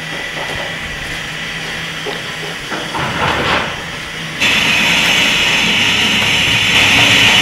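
Steam locomotive hissing steam loudly and steadily, starting abruptly about four seconds in over a low rumble. Before that there is a steadier, quieter background with a few faint scrapes.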